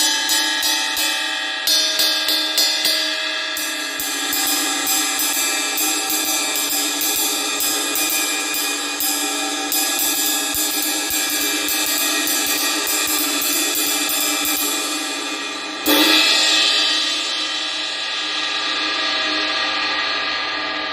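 Omete 20-inch Mercury Ride cymbal struck with a stick in a steady ride pattern of about four strokes a second, its wash ringing under the hits. About sixteen seconds in it is crashed once, loudly, and left to ring and slowly fade.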